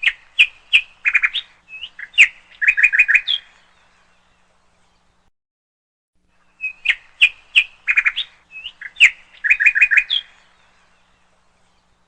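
Bird song: a phrase of short high chirps and quick runs of notes, lasting about three and a half seconds. It starts again identically after a three-second pause, like a looped recording.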